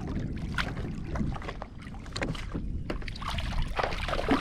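Water splashing and sloshing around a kayak, with scattered light knocks and a steady low wind rumble on the microphone.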